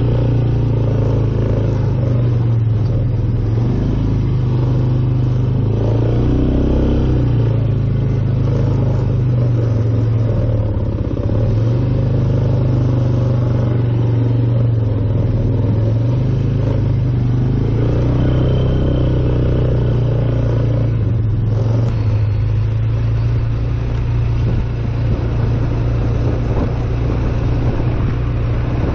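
Polaris ATV engine running steadily while being ridden, heard up close from the rider's seat.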